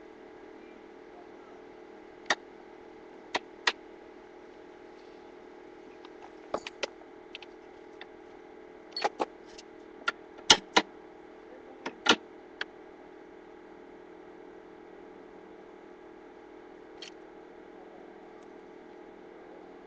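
Scattered sharp clicks and knocks of tools and parts being handled during installation work, a dozen or so, bunched near the middle and loudest around the tenth to twelfth second, over a steady low hum.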